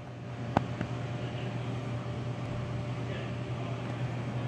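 Steady low electrical hum of a refrigerated drinks vending machine running, with a single sharp click about half a second in.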